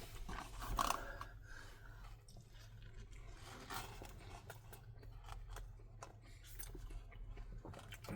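Close-up eating sounds: a person chewing fast food, with small irregular clicks and crackles and a louder burst about a second in.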